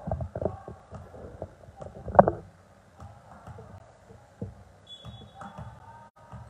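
Volleyball gym with low thuds and handling rumble in the first couple of seconds, the loudest a thump about two seconds in. Later a faint referee's whistle sounds for about a second, the signal to serve.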